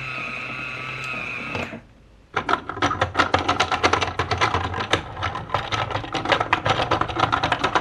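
A steady whirring hum that cuts off abruptly under two seconds in. After a short pause it gives way to rapid, irregular clicking and rattling of plastic building blocks.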